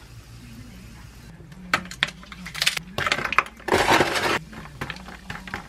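Ice cubes dropped into a glass of sparkling water, clinking against the glass. Single clinks start about a second and a half in, a dense clattering comes near the middle, and a few scattered clinks follow.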